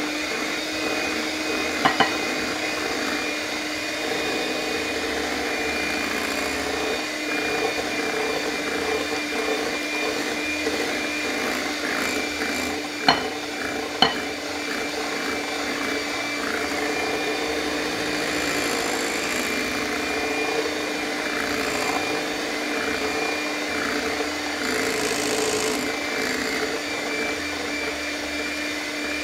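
Electric hand mixer running steadily at one speed, its beaters in a glass bowl beating cake batter as the dry flour mixture is added, with a steady motor whine. A few sharp clicks stand out, about two seconds in and twice around halfway.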